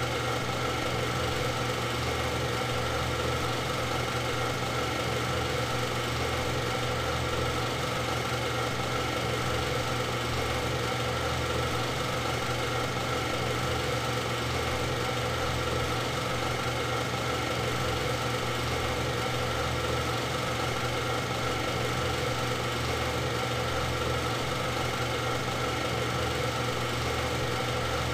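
A machine running at a constant speed: a steady, unchanging hum with fixed tones and no revving.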